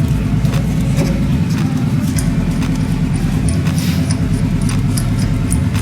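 A motorcycle engine running steadily at idle, with a rapid low pulsing beat and light metallic ticks over it.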